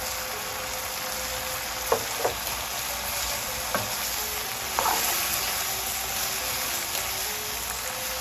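Shrimp and mixed vegetables sizzling in oil and sauce in a pan on high heat, with a few sharp clicks of a utensil against the pan as they are stirred.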